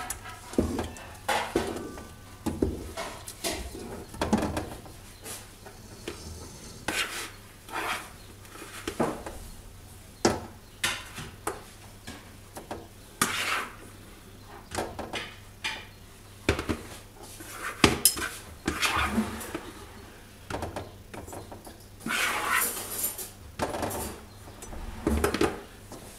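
A wooden spoon stirring and working a thick sesame-and-hazelnut paste in a large aluminium pot, scraping and knocking against the pot's sides in irregular strokes about once a second.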